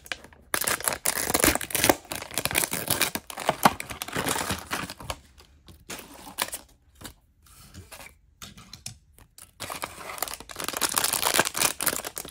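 Plastic foil blind-bag packaging being torn open and crinkled by hand, in bouts of crackling with a quieter stretch in the middle.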